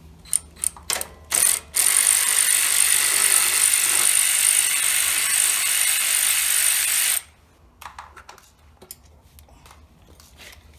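Cordless electric ratchet with a T30 Torx bit running for about five seconds as it backs a valve cover bolt out of a Kohler lawn mower engine, then stopping abruptly. Its battery is nearly dead. A few sharp clicks come before it starts, from fitting the tool onto the bolt.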